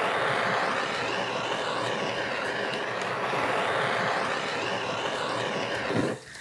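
Kitchen blowtorch flame hissing steadily as it browns meringue peaks, cutting off about six seconds in.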